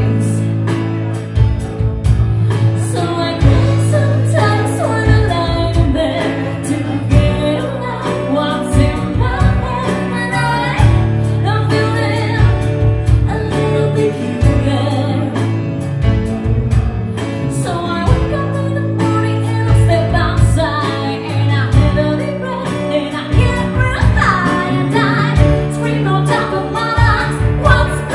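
Live rock band playing: a woman sings lead over electric guitar, drums and keyboard, with a steady drum beat.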